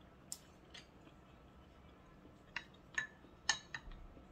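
Close-up eating sounds: a couple of small mouth clicks while chewing, then in the second half several sharp clinks of wooden chopsticks against a ceramic dish as food is picked up.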